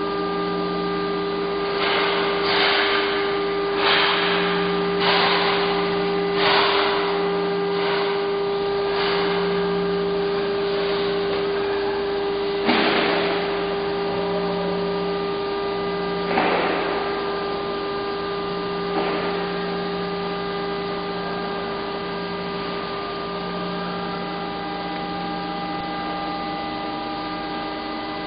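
Automated car-door production machinery running with a steady electrical hum and a low drone that cuts in and out. Over it come short hissing bursts, about one every 1.3 seconds for the first several seconds, then three more spaced further apart.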